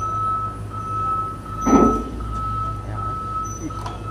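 A LiuGong excavator's diesel engine running steadily while its travel alarm beeps on and off, as the machine is driven up onto a lowboy trailer. One short, loud sound cuts in about two seconds in.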